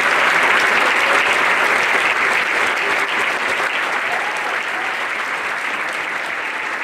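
An audience applauding, the clapping slowly dying down.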